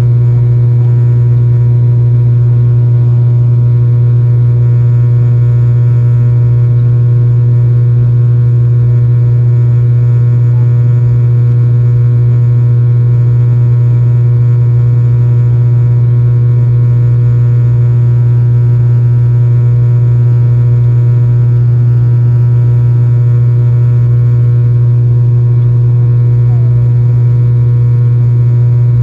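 ATR 72-600 turboprop heard from inside the cabin during the climb after take-off: the six-bladed propeller and Pratt & Whitney PW127 engine making a loud, steady low hum with a row of higher overtones.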